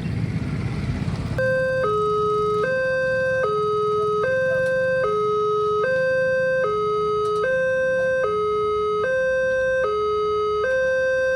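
Railway level-crossing alarm starting about a second and a half in: an electronic two-tone warning alternating high and low, each tone held about three-quarters of a second, the signal that the crossing gates are closing for an approaching train. A low traffic rumble runs underneath.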